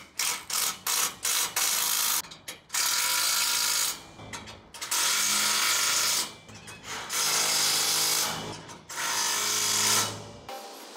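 Cordless impact driver doing up bolts on the steel rail brackets. Several short blips come first, then four longer runs of hammering, each about a second, with short pauses between them.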